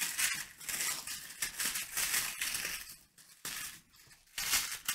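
Honeycomb kraft paper wrapping crinkling and crackling as it is pulled apart by hand: a dense run of crackles for about three seconds, then two short bursts near the end.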